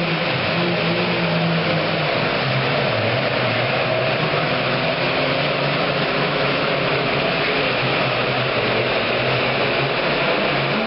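Super Farm class pulling tractor's turbocharged diesel engine running hard under full load on a pull, a loud steady engine noise; its pitch dips slightly about three seconds in and then holds steady.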